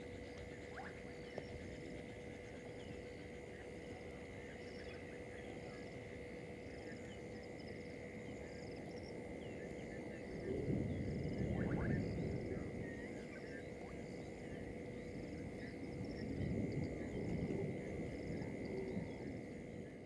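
Frogs calling in a steady chorus, with a high call repeating about once a second. Twice, about halfway and near the end, a louder low rushing noise swells for a couple of seconds.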